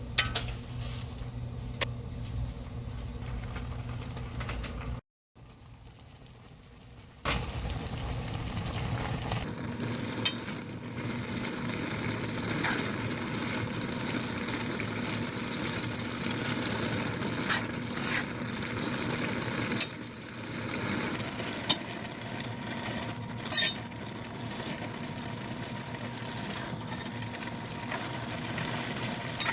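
A pot of collard greens and smoked turkey cooking on high heat, stirred, with a steady bubbling hiss and scattered sharp clicks of a utensil against the pot. It drops out briefly about five seconds in.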